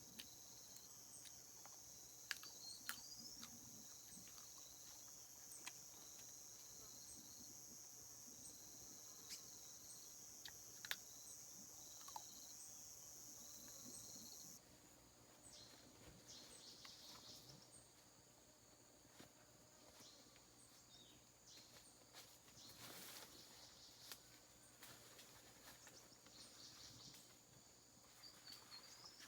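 Faint insect chorus: a steady, high, even buzz that cuts off abruptly about halfway through, leaving weaker insect calls, with scattered faint clicks throughout.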